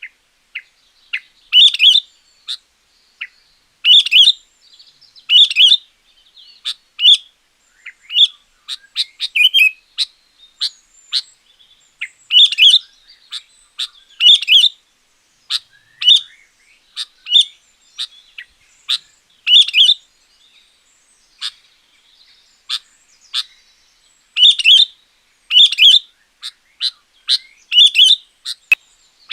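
Sooty-headed bulbul (kutilang) singing loudly and persistently: short, bright, bubbling phrases repeated every second or two, with brief pauses between them.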